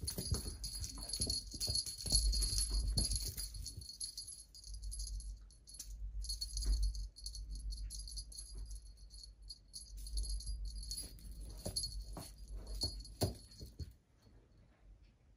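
A small jingle bell on a cat toy jingling in irregular shakes as a kitten plays with it, over soft bumps and rustling. The jingling stops shortly before the end.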